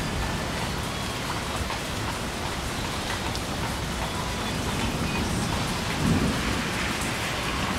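Heavy rain falling steadily in a storm, with scattered drops pattering and a low rumble underneath that swells about six seconds in.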